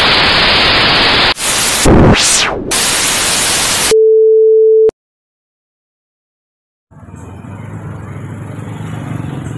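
Title-card sound effects: a loud burst of static hiss, a whooshing noise sweep that dips and rises in pitch, then a single steady beep about a second long. After two seconds of silence, street noise fades in near the end, with the low hum of a passing motor scooter's engine.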